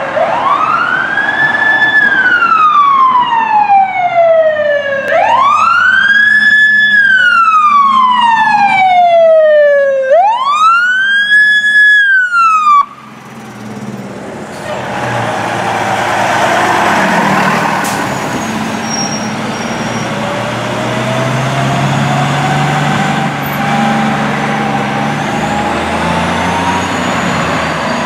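Fire engine siren winding up quickly and then falling away slowly, three times over, very loud, until it cuts off abruptly about 13 seconds in. After the cut, a fire truck's engine rumbles steadily as it drives past, with a fainter siren rising slowly in the background near the end.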